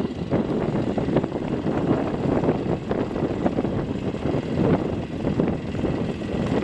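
Polaris RZR side-by-side's engine running steadily as the vehicle crawls its front wheel down into a crack in the slickrock.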